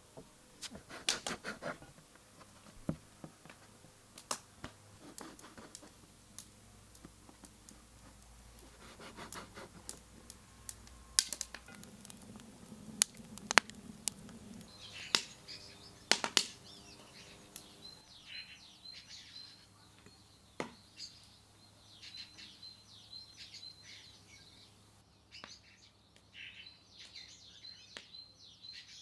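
Scattered sharp clicks and knocks for about the first half. Then, from about halfway on, small birds chirp over and over in quick short calls.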